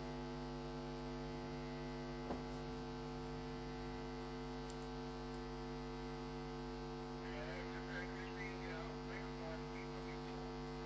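Steady electrical mains hum on the audio line, with one faint click about two seconds in.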